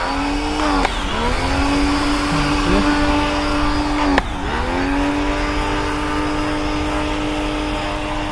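Karcher K1 pressure washer running and spraying: a steady electric motor whine over the hiss of the water jet. The motor's pitch dips sharply and recovers twice, about a second in and about four seconds in.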